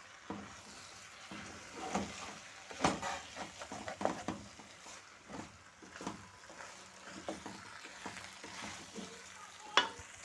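Pilau rice being stirred in a large sufuria over the heat: irregular scraping and knocking of the spoon against the pot over a steady sizzle, with one sharp clink near the end.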